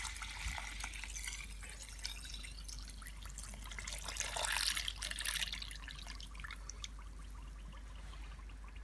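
Coconut milk poured from a bowl in a steady stream into rice flour in a wok, a splashing trickle that swells about four seconds in and eases off toward the end.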